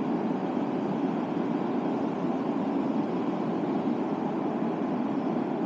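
Steady rushing of a river running high, an even noise that stays at one level throughout.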